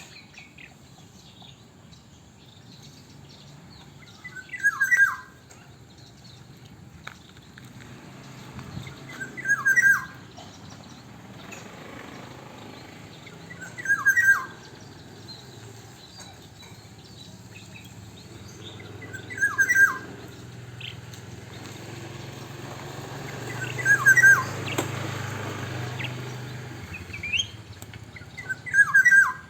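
Black-naped oriole (kepodang) calling: a short call of a few quick notes, repeated six times about five seconds apart, over a faint low hum.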